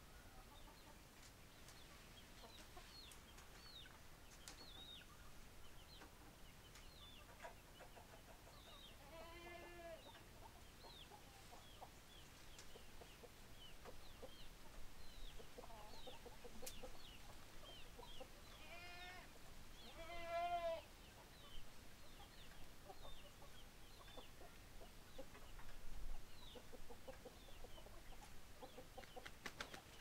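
Chickens foraging: a steady scatter of short, high, falling peeps from young birds, with soft low clucking joining about halfway through. A few longer, wavering calls stand out, the loudest about two-thirds of the way in.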